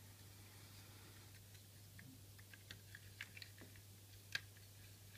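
Faint clicks and taps of a Transformers figure's parts being moved and pulled into place by hand: a scattering of small clicks in the middle, then one sharper click near the end.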